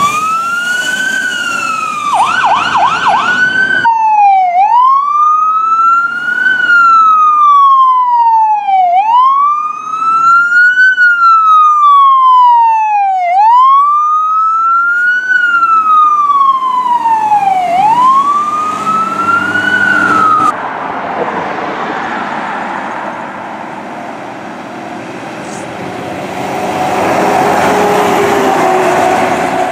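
Fire engines' electronic sirens: a wail, then a short fast yelp, then a long wail rising and falling about every four seconds that stops abruptly about two-thirds of the way in. After that comes the rumbling engine and road noise of a fire truck driving past, growing louder near the end.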